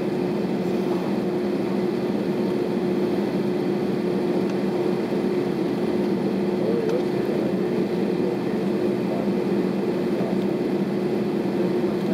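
Steady cabin noise inside an Airbus A320 taxiing: the idling engines and air conditioning make an even hum with two steady low tones.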